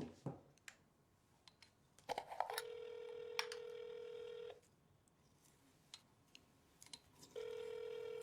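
Telephone ringback tone of an outgoing call waiting to be answered: two steady single-pitch rings, the first about two seconds long, the second starting about five seconds after the first. A few faint clicks come just before the first ring.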